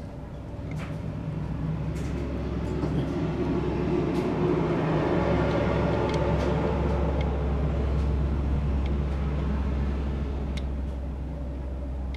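A low engine drone that swells over a few seconds and then slowly fades, with a few light metallic clicks of small bolts being handled.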